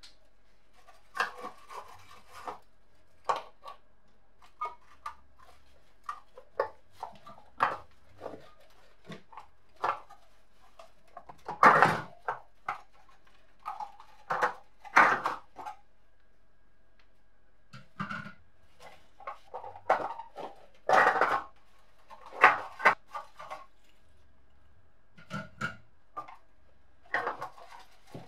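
Irregular metallic clinks, scrapes and knocks as rusty coiled-wire heating elements are worked loose and lifted out of an antique electric heater's sheet-metal tray. The loudest knocks come about twelve and twenty-one seconds in.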